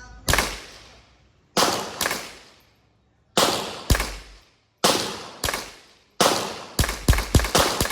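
Gunshots fired one after another, about a dozen, each a sharp crack with a fading echo, spaced irregularly and coming in a quick run of five or six near the end.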